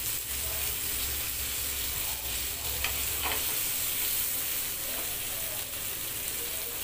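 Mutton chops sizzling steadily as they fry in oil, with a metal spatula scraping the grill pan a few times as a piece is lifted and turned.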